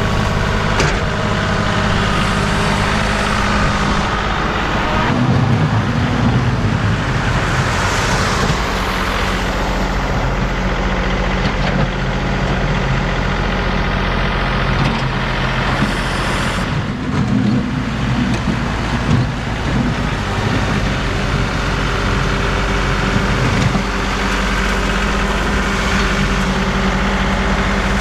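John Deere tractor engine running steadily, its pitch shifting briefly a few times as the load changes.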